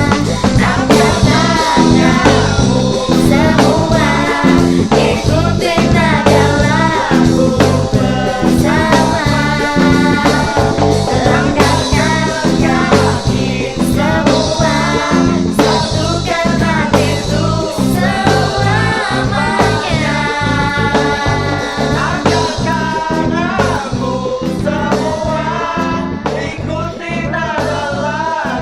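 A band performing a song live: a lead singer over electric guitar, bass and a steady drum beat.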